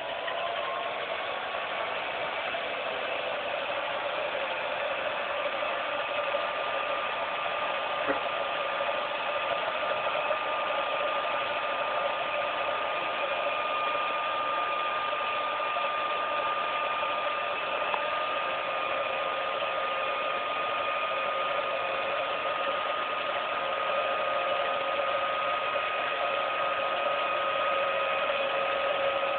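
16mm film projector running: a steady mechanical whirr of motor, fan and film transport with a steady high hum, getting louder over the first couple of seconds.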